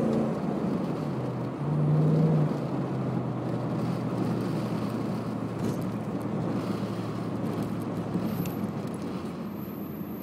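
Toyota Celsior's 1UZ-FE V8 exhaust on a cold engine, driving: the engine note rises briefly about two seconds in, then the sound settles into steady engine and road noise that slowly fades.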